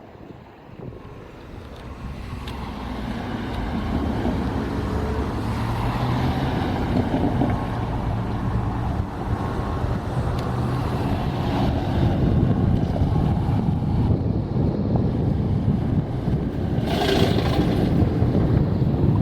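Diesel locomotive engine growing louder over the first few seconds as the train approaches, then running loud and steady, with wind on the microphone. A brief hissing burst near the end.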